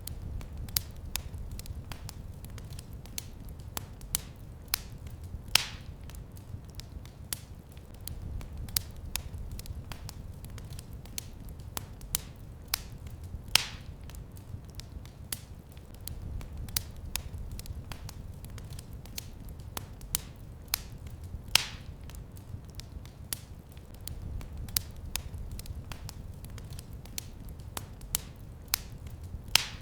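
Fireplace fire crackling: a steady low rumble of flames under many small sharp clicks, with a louder pop about every eight seconds.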